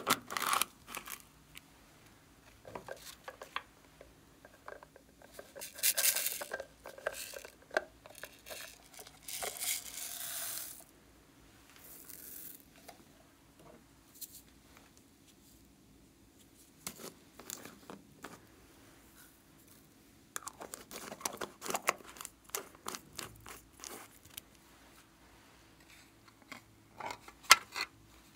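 Hands handling small plastic containers and bottles, with caps clicking and twisting open. Small beads and glitter are poured out in a couple of longer hissing stretches in the first half. Scattered clicks and taps follow near the end.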